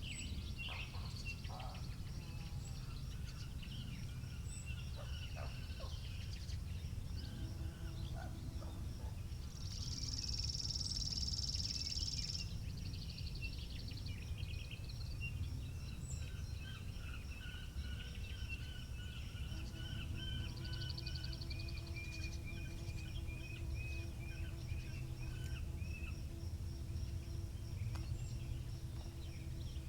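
Outdoor ambience of wind rumbling on the microphone, with small birds chirping and warbling throughout. About ten seconds in, a loud, high buzzing trill lasts some three seconds. In the second half a faint, steady distant hum sits underneath.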